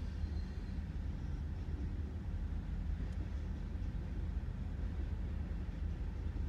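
Freight train's covered hoppers and tank cars rolling past, heard as a steady low rumble from inside a car's cabin.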